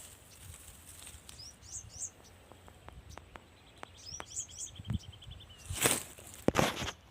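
Small birds chirping, with a quick trill in the middle and scattered light clicks. Two louder rustling swishes come near the end.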